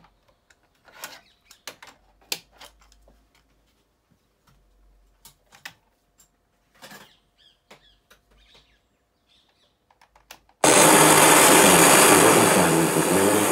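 Panasonic RX-FW18L boombox being operated: a run of separate plastic clicks and clacks from its cassette door and piano-key transport buttons. About ten seconds in, the set suddenly starts playing loud music through its speakers.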